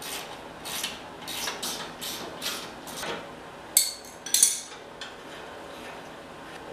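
Hand tools working metal on a lawn tractor's rear hydrostatic transaxle as it is unbolted for removal: a run of short scraping, ratcheting strokes, two to three a second, then two sharper metallic clinks about four seconds in.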